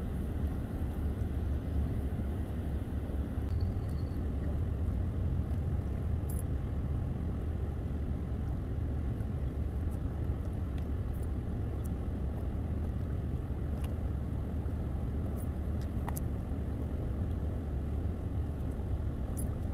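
Steady low rumble outdoors with no speech, broken only by a few faint clicks.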